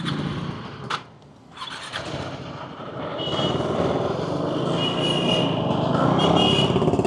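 Motorcycle engine running, growing louder over the last few seconds, with a few short high beeps in the second half.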